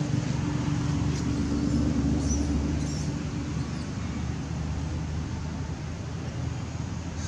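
Steady low hum of a motor vehicle's engine running, easing off a little about halfway through, with a few faint high chirps over it.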